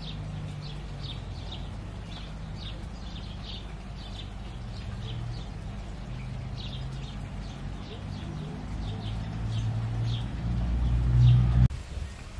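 Small birds chirping over and over, high and short, about two chirps a second. Beneath them is a low steady rumble that grows louder and then cuts off suddenly near the end.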